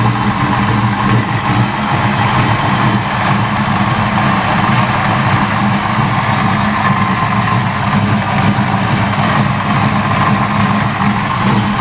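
Fox Body Mustang engine idling steadily.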